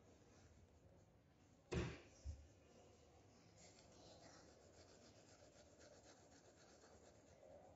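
Faint scratching of a pencil shading on paper, in soft repeated strokes. About two seconds in there is one sharp knock, then a smaller one just after.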